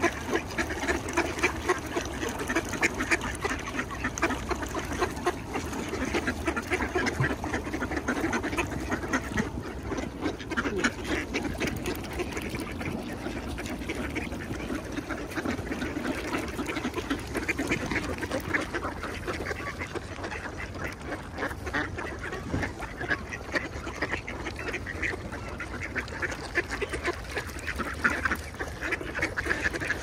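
A large flock of ducks quacking together, many overlapping calls forming a continuous chorus.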